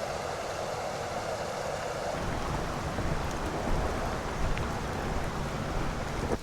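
Steady rush of a stream's flowing water, with a deeper rumble coming in about two seconds in.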